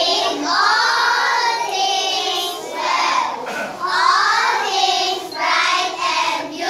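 A group of young children singing together in unison, in held phrases with short breaks between them.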